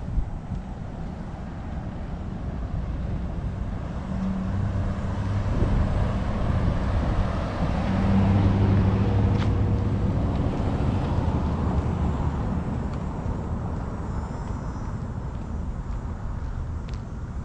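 A van driving past close by, its engine hum swelling to its loudest about eight to ten seconds in and then fading, over a steady low rumble.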